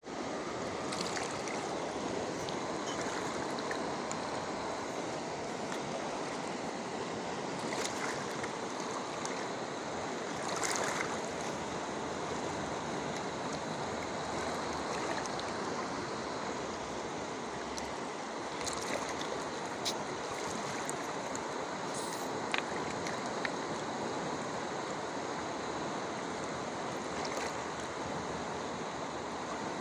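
River water flowing steadily over the stones, with a few brief clicks scattered through it.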